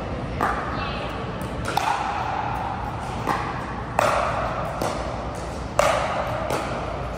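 Pickleball rally: a paddle strikes the hard plastic ball about five times, a sharp pop every second or so. Each pop rings briefly in the large indoor hall.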